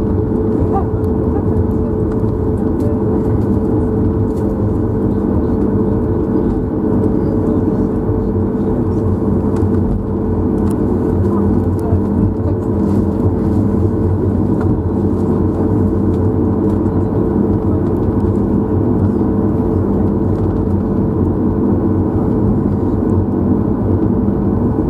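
Steady cabin noise inside a Boeing 737 MAX 8 as it taxis: the CFM LEAP-1B engines' even hum with a constant mid-pitched tone, heard from a window seat over the wing.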